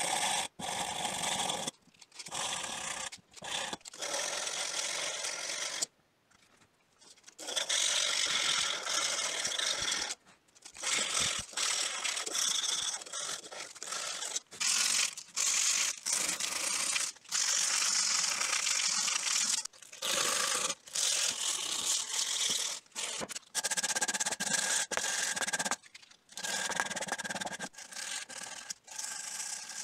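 Hand-sanding steel pincers: abrasive paper on a wooden stick rubbed back and forth over the metal in runs of strokes broken by short pauses, with quieter rustling of sandpaper near the end.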